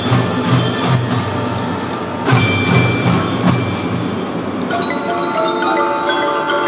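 Children's drum band playing: bass drums beat steadily under marimba and glockenspiel-type mallet instruments carrying a melody. Near the end the drums drop out and held, ringing melody notes carry on.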